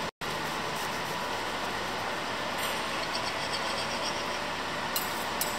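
Steady hiss of room noise, cut by a very short dropout at the start, with a few light clicks of a knife and fork against a ceramic plate about two and a half seconds in and twice near the end.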